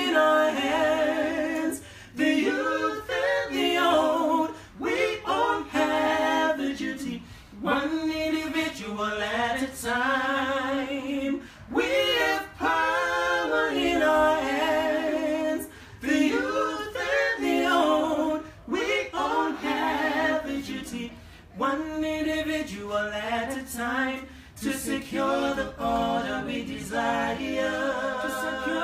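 Unaccompanied a cappella singing: a sustained, gliding melody sung in phrases of a few seconds with brief pauses for breath between them.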